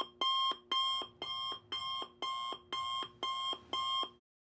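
Electronic alarm clock beeping, about two beeps a second, stopping near the end.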